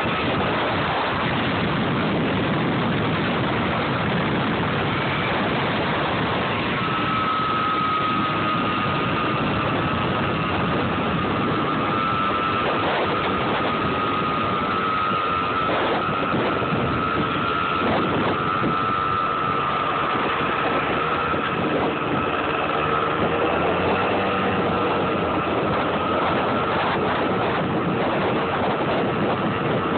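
Motor scooter engine running while riding, with street traffic and steady noise throughout. A steady high whine runs through most of it, starting about seven seconds in and fading near the end.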